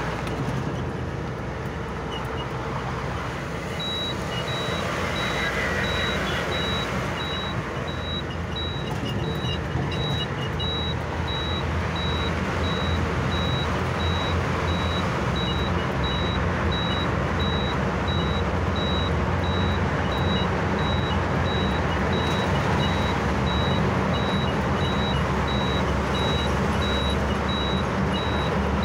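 Steady engine and road noise from a moving vehicle, heard from inside it. About four seconds in, a series of short, evenly spaced high beeps starts and keeps repeating.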